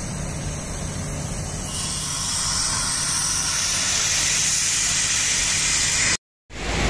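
A diesel excavator engine runs at a low, steady hum. About two seconds in, a loud, steady hiss takes over: air escaping from the rubber ship-launching airbags under a tugboat's hull. The sound cuts out for a moment near the end.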